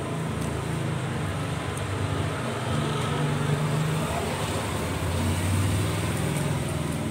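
Steady low rumble of road traffic, swelling a little in the middle, with a few faint clicks.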